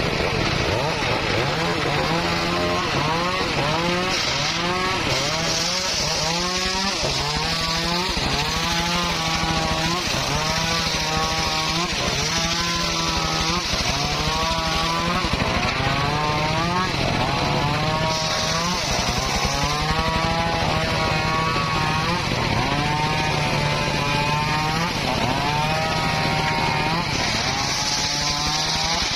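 Motor-driven circular saw cutting wood, its pitch dipping and recovering over and over, about once every one and a half to two seconds, as the blade bites into the wood under load and then speeds back up.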